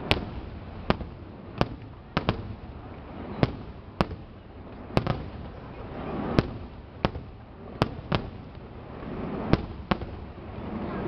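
Aerial firework shells bursting: a string of sharp bangs, about one or two a second at uneven spacing, with a low rumble in between.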